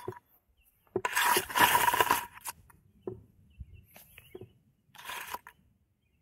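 Rustling, scraping contact noise on an action camera's microphone as it is jostled in the grass: a long burst about a second in and a shorter one about five seconds in, with a few light knocks between.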